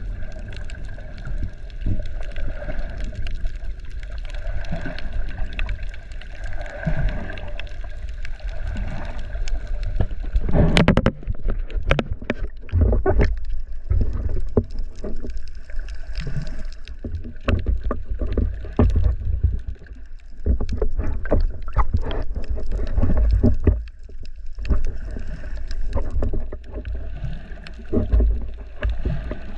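Water splashing and sloshing close to the microphone, with deep rumbling buffets and many short sharp splashes, the loudest burst about eleven seconds in.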